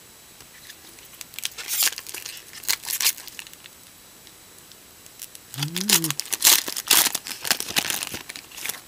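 Foil wrapper of a Topps baseball card jumbo pack being torn open and crinkled by hand, in two bouts of crackling rustle, the second louder and longer.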